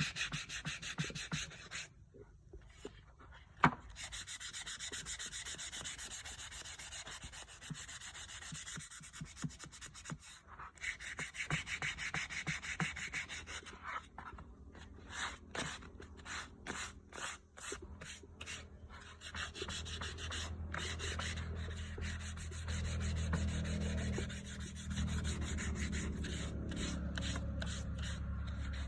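Wood being sanded in repeated rubbing strokes. From about twenty seconds in, a low steady hum runs underneath.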